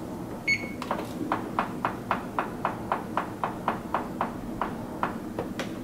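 Oven control panel being set to preheat to 425 °F: one short electronic beep, then a steady run of sharp clicks, about four a second, as the temperature setting is stepped up.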